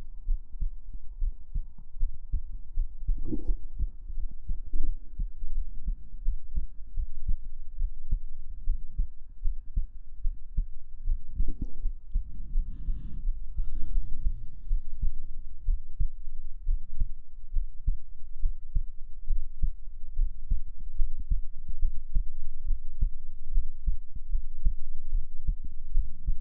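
A human heartbeat heard close up, a steady run of deep low thumps. A few brief louder noises break in, about three seconds in and again around twelve to fourteen seconds.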